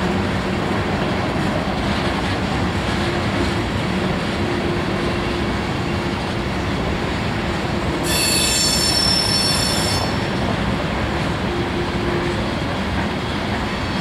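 Freight train of covered hopper cars rolling past, with a steady rumble of wheels on rail. About eight seconds in, a high-pitched metallic wheel squeal rings out for about two seconds, then stops.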